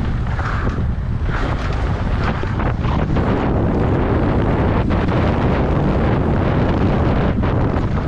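Wind buffeting a helmet-mounted action camera's microphone as a mountain bike descends a dirt race trail at speed, mixed with the noise of the tyres running over loose dirt and stones. Loud and steady, with no clear pitch.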